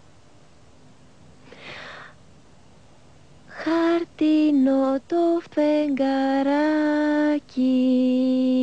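A young girl's solo voice singing a slow lullaby in Greek, unaccompanied, starting about three and a half seconds in with a few short phrases and then long held notes. A soft hiss comes just before it.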